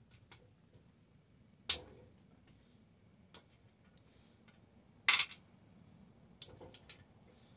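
Sharp metal clinks and clanks from hands working the lid clamps and handles of a depressurized aluminium pressure canner, about five separate knocks with the loudest about two seconds in.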